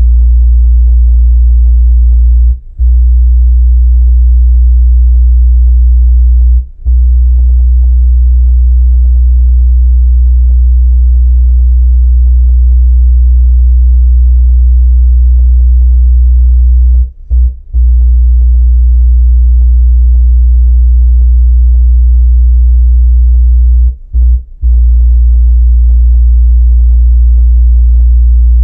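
Kenwood KFC-W112S 12-inch subwoofer in a bass-reflex box playing a steady, very loud low sine test tone in the 50–60 Hz range at 3 watts inside a small car's cabin. The tone cuts out for a moment several times as it is stepped to a new frequency.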